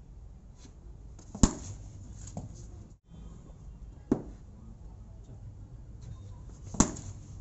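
Cricket bat hitting a tennis ball three times, sharp cracks about two and a half seconds apart, each followed by a fainter knock.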